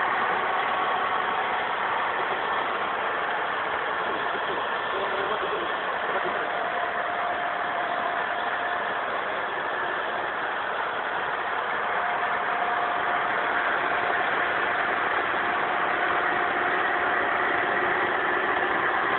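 A machine running steadily, with faint whining tones rising and fading in and out over it.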